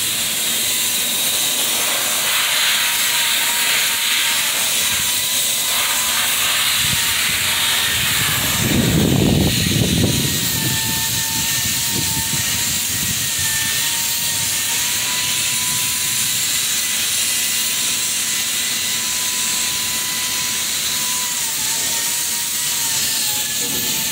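Steady loud hiss of industrial plant machinery, with a thin steady whine running through it that wavers slightly. About nine seconds in there is a brief louder rumble.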